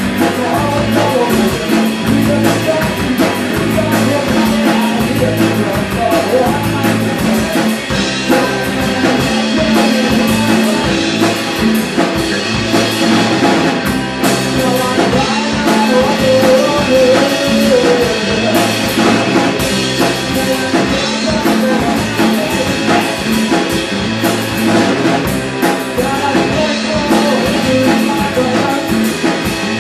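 Live rock band playing: a drum kit, an electric guitar and a bass guitar, with the lead singer singing into the microphone.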